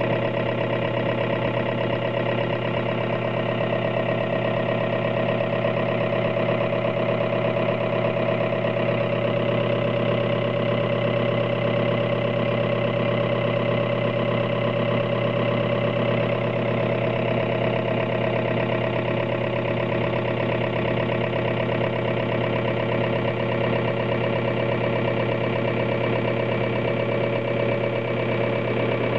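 Common rail injector test bench running steadily under rail pressure, its drive motor and high-pressure pump giving a constant mechanical hum with a fine, rapid pulsing texture.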